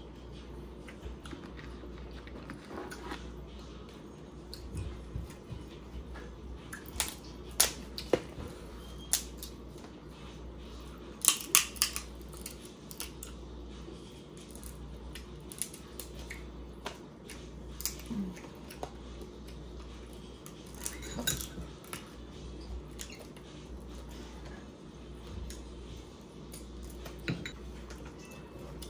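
Eating a seafood boil of crab legs and lobster tails: scattered sharp cracks and clicks of shells being snapped and picked apart, along with utensil and dish clatter, loudest in a quick cluster about eleven seconds in.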